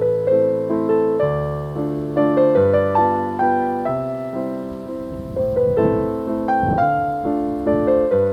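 Soft solo piano music: a slow melody over changing bass notes, each note struck and left to fade.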